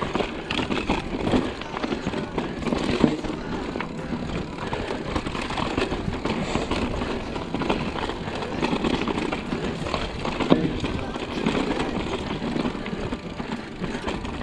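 Mountain bike riding down rocky singletrack: tyres rolling and crunching over loose stones, and the bike rattling, with irregular sharp knocks as it hits rocks.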